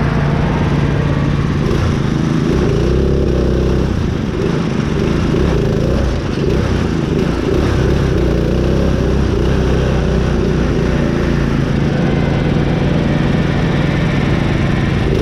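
Small engine of a modified riding lawn mower (mud mower) running hard and continuously, its pitch wavering slightly as the load changes.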